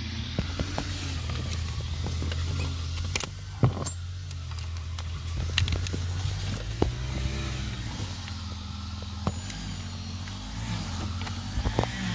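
A steady low engine drone runs throughout. Over it come a few sharp clicks and knocks of handling plastic door trim and tools, the loudest about three and a half seconds in.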